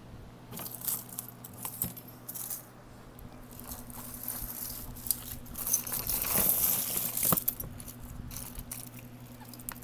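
Costume jewelry jangling and clinking as a hand rummages through a tub of tangled bead necklaces, chains and watches: scattered clicks, busiest and loudest from about five and a half to seven and a half seconds in.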